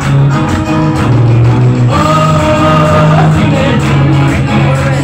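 Loud music with a singing voice over a steady bass beat; the singer holds one long note about two seconds in.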